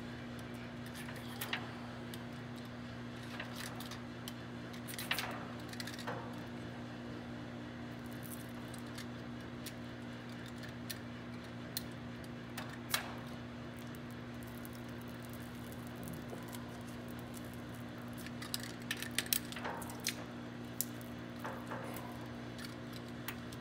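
Light scattered clicks and scrapes of a hand tool working the end of a length of .750 coax cable, over a steady low hum; the clicks come more often near the end.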